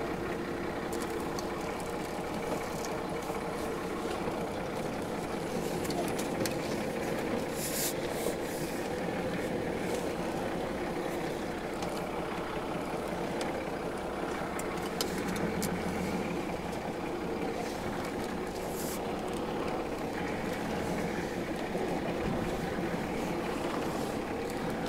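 Toyota Land Cruiser 60 Series engine running steadily at low revs, heard from inside the cab as it creeps along a rough sandy track. A couple of sharp knocks come through, about a third of the way in and again near three-quarters.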